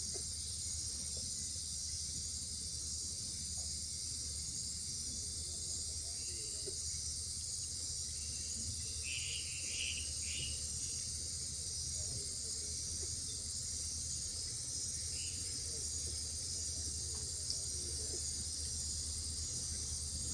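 Night-time rainforest insect chorus of katydids and other insects, making a steady high-pitched drone over a low hum. A few short calls break in about halfway through.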